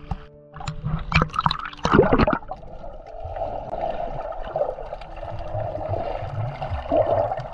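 Water splashing over an action camera as it goes below the surface, loudest about two seconds in, then a steady muffled rushing of water heard through the submerged camera.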